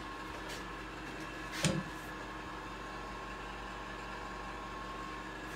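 Steady room hum with faint high tones, a light click about half a second in and a short knock about a second and a half in.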